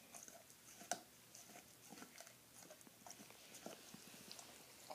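A nine-month-old Saint Bernard gnawing a large chew bone: faint, irregular clicks and scrapes of teeth on the bone, with one sharper click about a second in.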